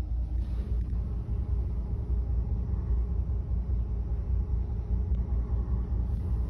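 Steady low rumble of a cruise ship under way, heard from inside a cabin beside a closed window.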